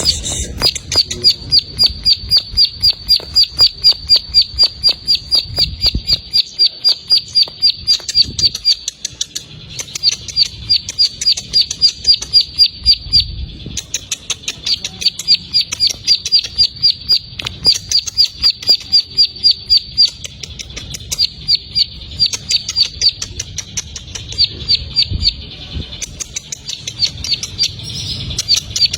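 Ciblek sawah (a prinia) giving its fast 'ngebren' call: long runs of sharp, high, evenly repeated notes, several a second, broken by short pauses every few seconds. A faint low rumble sits underneath.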